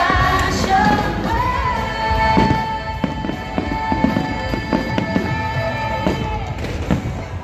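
Aerial fireworks bursting in repeated bangs and crackles over the show's music, which holds one long note through the middle.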